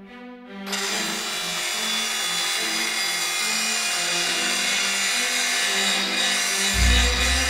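Angle grinder running steadily, a harsh, even grinding noise that starts about a second in as orchestral music cuts out. Near the end a deep low rumble joins it.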